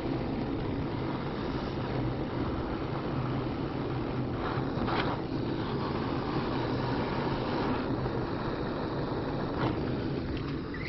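Gas blowtorch flame burning with a steady hiss while heating the upper soldered joint of a copper pipe coupling, with a few faint clicks.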